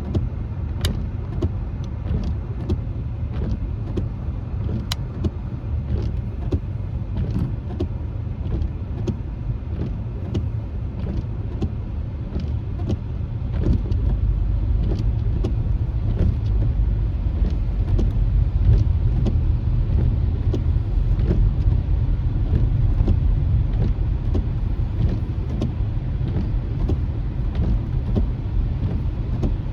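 Road noise heard inside a car's cabin on a wet road: a steady low rumble of tyres, with scattered light ticks of raindrops on the windshield. The rumble grows louder about halfway through.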